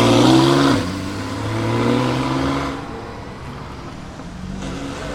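A supercar's engine accelerating hard as it pulls away, its pitch rising, dropping sharply at an upshift just under a second in, then rising again and fading as the car drives off.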